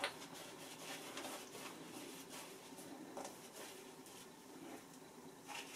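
Shaving brush working lather onto a stubbled face: faint, irregular bristly swishing strokes.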